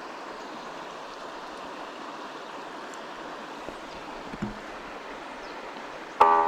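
Stream water flowing steadily. Music comes in abruptly near the end.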